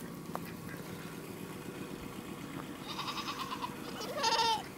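A goat bleating twice: a faint quavering call about three seconds in, then a louder call near the end that drops in pitch as it finishes.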